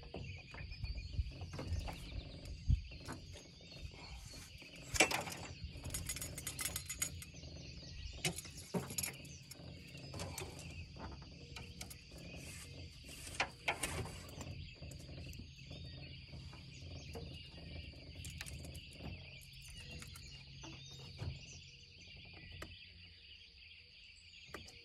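Birds chirping steadily in the background. Several sharp knocks and clatters come as fishing rods and gear are handled in a small boat, the loudest about five, nine and thirteen seconds in.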